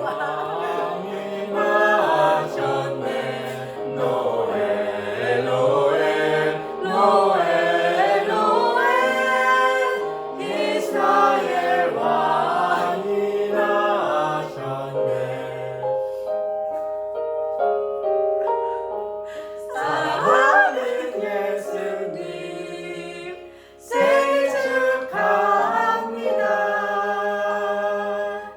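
A small group of voices singing a Christmas carol medley of praise songs together, in a choir-like blend over a recorded instrumental backing track.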